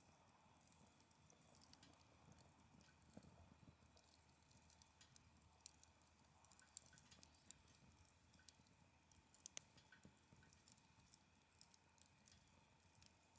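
Wood fire burning in a folding fire pit, crackling faintly with irregular small pops and ticks; one sharper pop comes about nine and a half seconds in.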